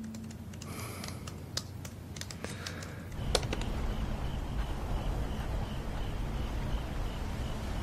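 Typing on a laptop keyboard: scattered, irregular key clicks for about three seconds. Then a steady low room hum takes over.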